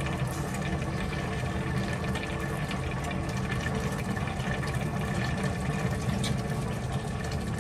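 Coconut milk with taro leaves simmering in a stainless steel pan, a steady bubbling, stirred with a metal spoon that gives faint scrapes and clinks.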